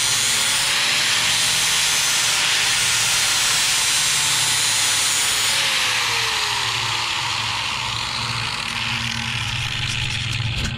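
Electric angle grinder with a 36-grit flap disc grinding the edge of a steel lawn mower blade clamped in a sharpening jig: a steady grinding hiss, the motor's whine sagging lower about halfway through.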